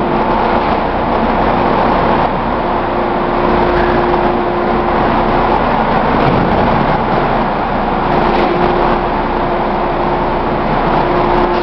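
Industrial plastic-crate washing machine running: a loud, steady mechanical noise with a constant hum that drops out for about two seconds around the middle, then returns.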